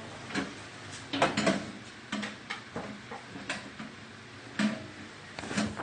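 Irregular knocks and clicks from a new microwave oven and its parts being handled, about half a dozen over the few seconds.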